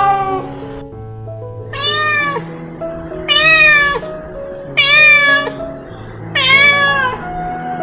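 Domestic cat meowing repeatedly: about five drawn-out meows, one every second and a half or so, over background music with held notes.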